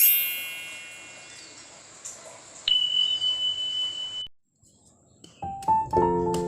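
A bright chime rings out at the start and fades, then a steady high-pitched beep sounds for about a second and a half and cuts off suddenly. After a short silence, piano music begins about five seconds in.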